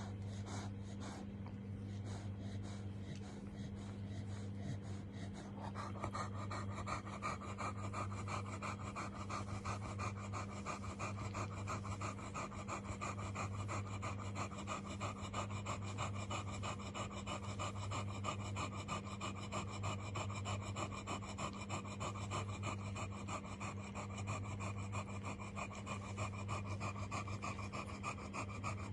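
A dog panting rapidly and steadily, growing louder about six seconds in, over a steady low hum.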